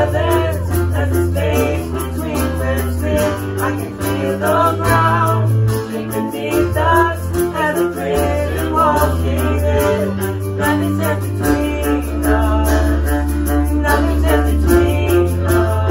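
Voices singing a worship song over electric keyboard, acoustic guitar and violin, with sustained low bass notes and a hand shaker rattling in time.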